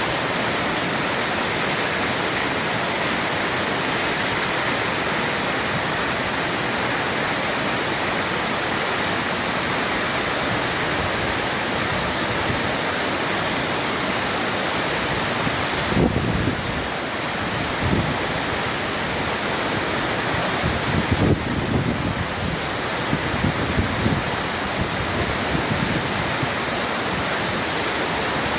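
Steady rushing of a large waterfall, about 20 metres high with a big volume of water. A few low bumps break in about halfway through and again for a couple of seconds a little later.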